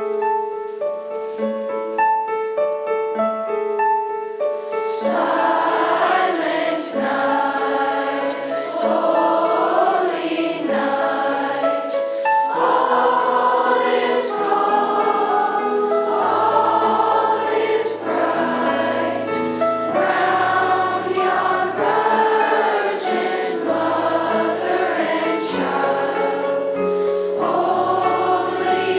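Middle school choir singing a slow holiday song with piano accompaniment. The piano plays alone for the first few seconds, and the choir comes in about five seconds in.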